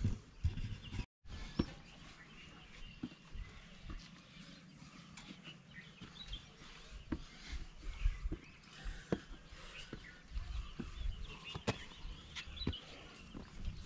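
Scattered knocks and scuffs of a climber's feet and hands on steep rock-cut steps and an iron handrail, over a low rumble, with faint bird chirps. The sound drops out briefly about a second in.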